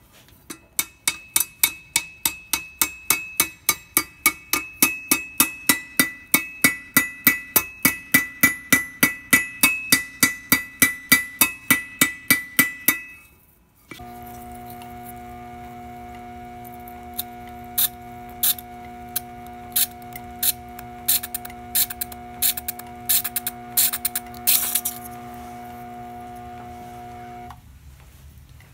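Hammer forging red-hot iron on an anvil: a steady run of ringing blows, about four a second, for some thirteen seconds. After a short break comes a steady drone of several held tones with scattered clicks, which stops abruptly near the end.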